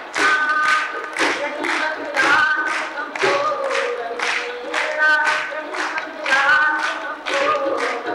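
A woman singing a Sindhi folk song over a steady rhythmic beat of sharp strokes, about two or three a second, with tabla accompaniment.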